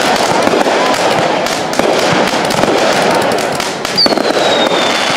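Fireworks display: dense crackling with many rapid pops from aerial bursts. About four seconds in, a high whistle starts and falls slightly in pitch.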